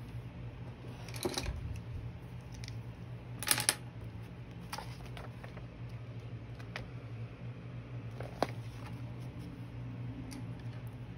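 Coloured pencils being handled on the drawing surface: a few light clicks and taps, the loudest a quick double click about three and a half seconds in, over a steady low hum.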